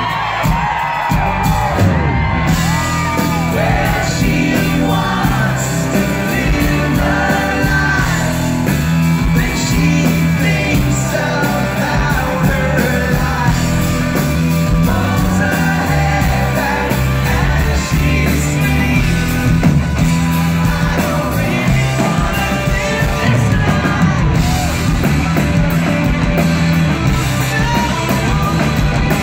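Live rock band performing: a male lead voice singing over electric guitar, bass and drums, with shouts and cheers from the audience.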